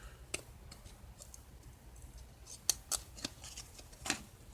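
Baseball trading cards being handled and peeled apart by hand, the cards sticking together. About half a dozen short, sharp snaps and clicks at irregular moments.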